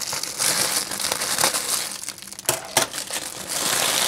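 Clear plastic packaging bag crinkling and rustling as it is handled and cut open with scissors, with two sharp clicks a little past halfway.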